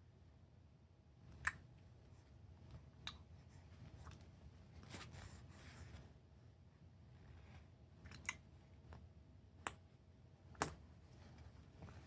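Two-month-old baby clicking her tongue: about five sharp, separate mouth clicks at uneven gaps of one to five seconds, with a soft breath about halfway through.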